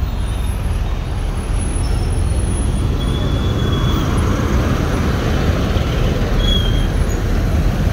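A heavy MAN articulated truck passing close by, its engine and tyres giving a steady heavy rumble over general road traffic that includes motorcycles. Two brief faint high squeals come about three seconds in and near the end.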